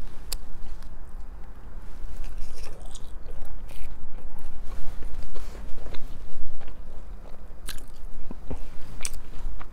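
Close-miked eating of fried chicken strips and fries: biting and chewing, with irregular crunches and clicks.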